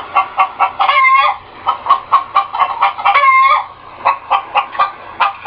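Hen cackling: runs of quick clucks, each ending in a long, drawn-out wavering squawk, twice.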